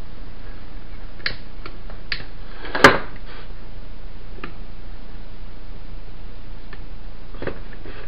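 Scattered light clicks and knocks of an old Torcan electric fan's motor assembly and plastic stand bracket being handled and fitted together during a repair, with one sharper knock about three seconds in, over a steady low hum.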